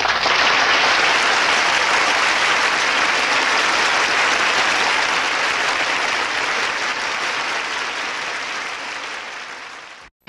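Studio audience applauding and cheering at the end of a song, a dense steady clapping that slowly fades away and cuts off just before the end.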